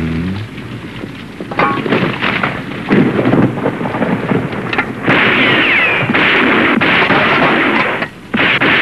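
Heavy rain with rolling thunder, a storm sound effect. The downpour swells loudly several times, strongest from about five seconds in, and drops away briefly near the end.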